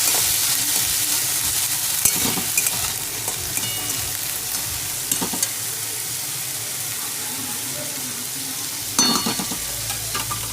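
Sweet corn kernels sizzling in a little hot oil in a kadai, with a spatula scraping and knocking against the pan a few times as they are stirred.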